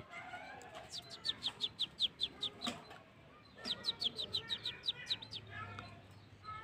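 Kecial kuning (a Lombok white-eye) singing: two fast runs of short, high, downward-slurred notes, about six a second, with softer twittering chirps between and after them.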